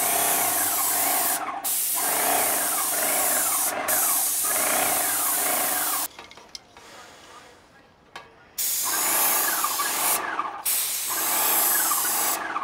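Magnum X5 airless paint sprayer spraying house paint in bursts of one to two seconds, its hiss cutting on and off sharply as the gun trigger is pulled and released, about five times with a longer pause in the middle. A whine rises and falls under the hiss about once a second.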